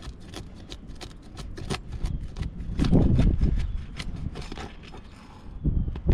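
Asphalt 3-tab shingle tabs being pried and lifted, their sealant strips crackling and snapping loose in many sharp irregular clicks, with a low rumble of wind on the microphone that swells about three seconds in.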